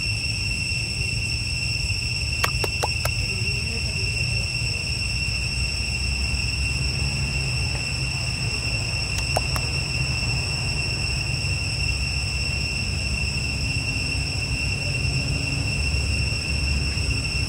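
Steady, high-pitched drone of insects in the forest canopy, unbroken throughout, over a low rumble. A few sharp clicks come about two and a half seconds in and again near nine seconds.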